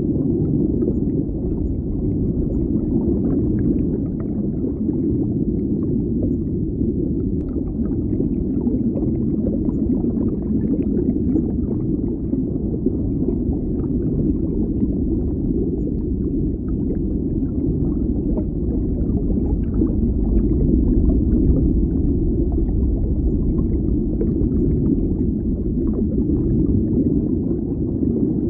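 Water bubbling, heard muffled as if underwater: a steady, deep rumble of water and bubbles with faint small pops scattered through it.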